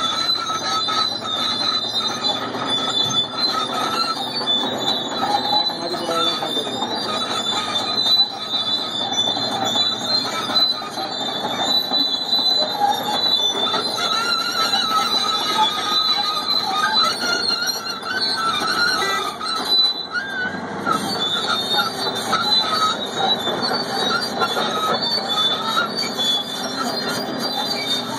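Caterpillar D9R crawler bulldozer moving on its steel tracks: the diesel engine runs under a steady, high, wavering metallic squeal from the track undercarriage.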